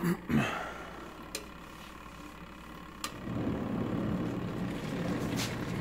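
Twin tub washing machine motor: a few knocks and clicks, then a quieter lull. About three seconds in, the motor starts up again with a steady low hum.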